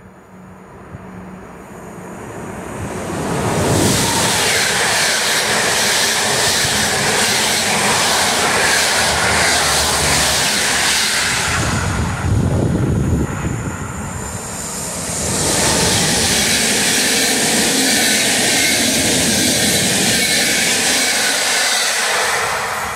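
Locomotive-hauled PKP Intercity passenger train passing through the station without stopping: a rushing rumble of wheels on rail that builds as it approaches and stays loud as the coaches go by. It dips briefly about halfway through, then starts to fade near the end.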